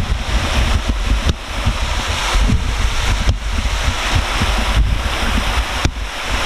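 Steady rush of water pouring off a trough bridge (aqueduct) and splashing into the river below, like a small waterfall, with wind buffeting the microphone in uneven low rumbles.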